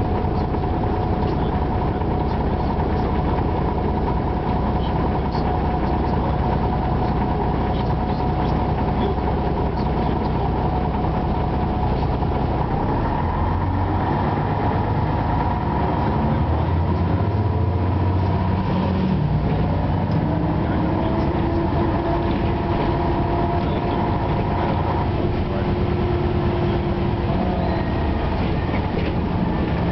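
Ikarus 260 city bus's Rába-MAN six-cylinder diesel engine heard from inside the passenger cabin, running steadily at idle for about the first half. It then pulls away, the engine note rising as the bus gathers speed, with a change in the note after about 25 seconds.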